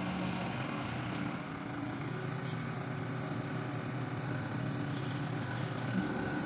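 Hitachi ZX70 crawler excavator's diesel engine running steadily while the machine's upper structure swings round on its tracks.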